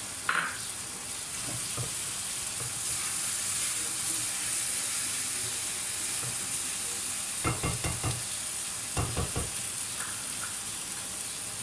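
Chicken mince and vegetables with shredded cabbage frying in a wok over a gas flame, a steady sizzle. A stirring utensil knocks and scrapes against the wok in two short bursts, about seven and a half and nine seconds in.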